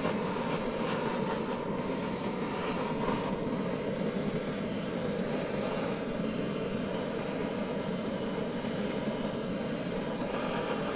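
A steady, even rushing noise with no clear pitch.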